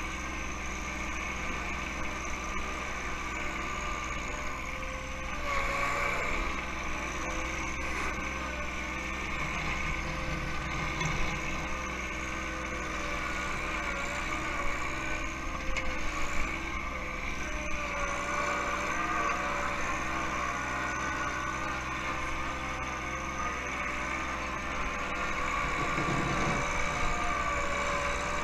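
John Deere 1 Series compact tractor's diesel engine running steadily while the backhoe works snow, its tones wavering in pitch at times under load, with a few louder moments.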